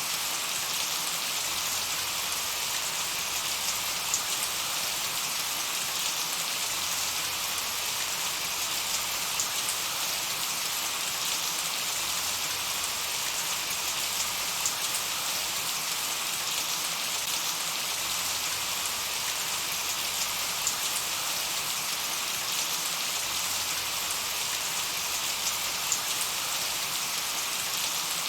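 Steady light summer rain falling, an even patter with scattered individual drop ticks.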